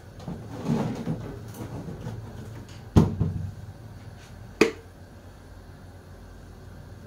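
Kitchen handling sounds: a short rustle and clatter, then two sharp knocks of hard objects about a second and a half apart, the second with a brief ring.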